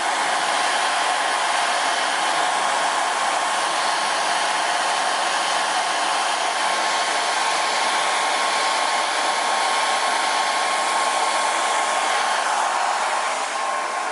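Hand-held hair dryer blowing steadily, a rushing stream of air with a thin whine from its motor and fan; it eases off slightly near the end.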